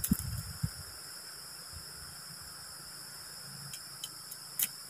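Night insects, crickets, chirring steadily at a high pitch. A few dull knocks in the first second and some sharp clicks near the end come from handling wood by the fire.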